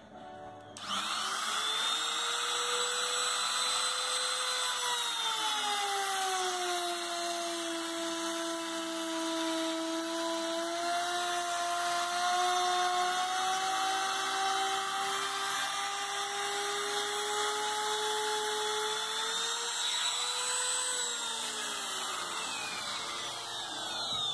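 Handheld trim router cutting a slot in MDF along a straightedge. The motor whines up to speed about a second in, drops in pitch as the bit bites into the board, and runs steadily under load. Near the end it rises again as the cut comes free, then spins down.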